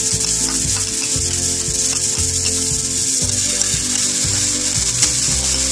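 Hot oil sizzling in a frying pan with cumin seeds and freshly added chopped ginger and garlic, a steady high hiss, over background music.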